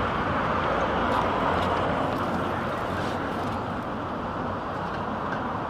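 Street traffic noise: a steady wash of passing vehicles, easing slightly toward the end.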